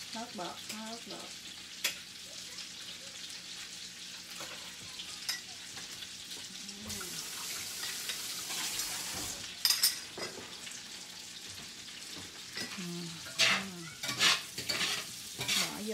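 Carrot slices sizzling in hot oil in a stainless frying pan, a steady hiss. A metal spatula clacks against the pan once or twice about ten seconds in, then scrapes and strikes it several times while stirring near the end.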